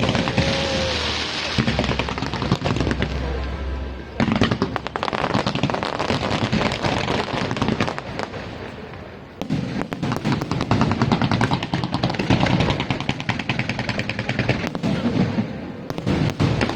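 Aerial fireworks going off in rapid volleys: dense crackling with low booms in the first few seconds, dipping briefly twice before picking up again.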